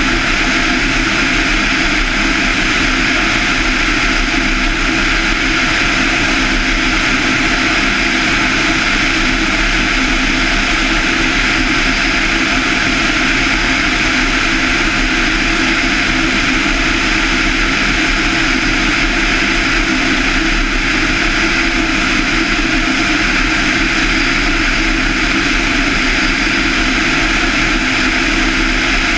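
The 200 hp Lycoming IO-360-A1A four-cylinder engine and propeller of a Van's RV-7 running steadily in flight, a constant drone with no change in power.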